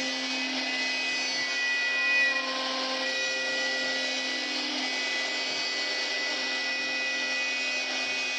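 CNC router spindle running with a steady whine while its small carving bit cuts a relief into wood, over a continuous hiss of cutting; briefly louder about two seconds in.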